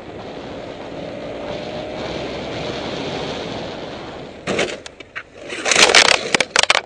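A motorcycle riding along with steady engine hum and wind rush. About four and a half seconds in comes a loud bang, then a rapid run of crashing, clattering impacts and scraping as the bike goes down.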